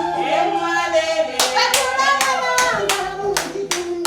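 Voices singing a song, joined about a second and a half in by steady rhythmic hand clapping, roughly three claps a second.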